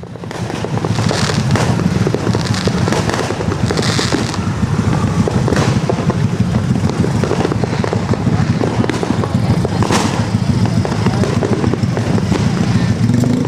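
Dense, continuous barrage of New Year fireworks and firecrackers: rapid overlapping pops and bangs with no gaps, and one louder bang about ten seconds in.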